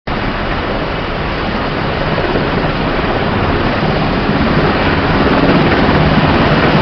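Helicopter running close by: a loud, steady rush of rotor and turbine noise that slowly grows louder, heard through a mobile phone's microphone.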